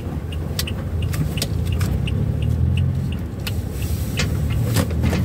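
Road rumble and engine hum inside an ambulance driving over a rough road, with frequent short knocks and rattles from the cabin and a light regular ticking about three times a second.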